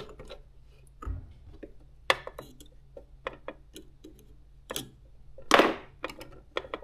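Small clicks and ticks of hands putting the bobbin into a Janome HD 3000 sewing machine and working the thread at the needle plate, with a brief louder rustle about five and a half seconds in.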